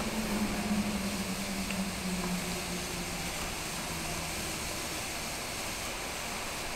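Zojirushi EE-DC50 steam humidifier running, with a steady hiss. A low hum fades out about three seconds in.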